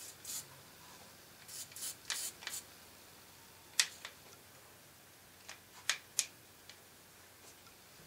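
Plastic clicks and rubbing as a pistol-grip trigger handle is fitted onto an aerosol spray can: a cluster of short clicks and scrapes about two seconds in, then a few sharp single clicks around four and six seconds in.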